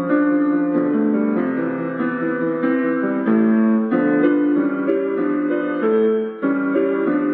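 Piano-like keyboard music: a melody of held notes over chords, changing pitch every half second or so, with a brief drop in loudness about six seconds in.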